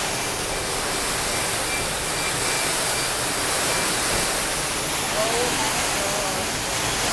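Floodwater pouring in a heavy cascade through a leaking ceiling onto the flooded floor: a loud, steady rush of falling water.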